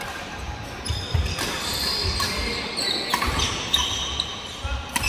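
Badminton doubles rally: sharp racket strikes on the shuttlecock every second or so, with short high-pitched shoe squeaks and thudding footsteps on the wooden court.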